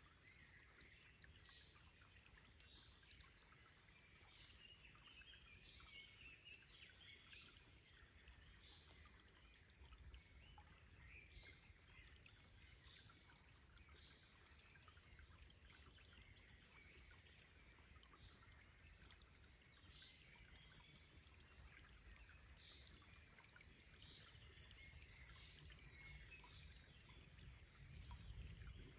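Faint forest ambience: wild birds chirping and singing over the low, even rush of a stream, with a thin high note repeating about once a second.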